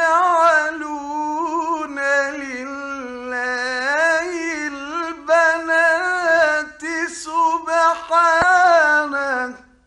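A man reciting the Quran in melodic tajweed style: one long phrase of held, wavering, ornamented notes that stops about nine and a half seconds in.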